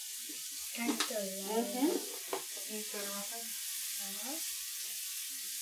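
Steady sizzling of food frying in a hot pan, with a sharp click about a second in.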